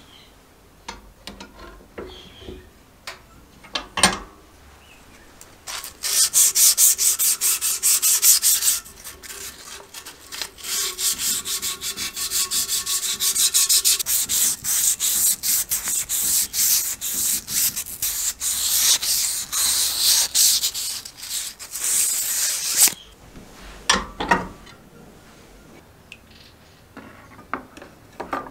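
Abrasive paper rubbed quickly back and forth along a bent metal rod in a fast run of strokes, with a short break partway through, stopping a few seconds before the end. A sharp knock comes about four seconds in, and there are a few metal clinks after the rubbing stops.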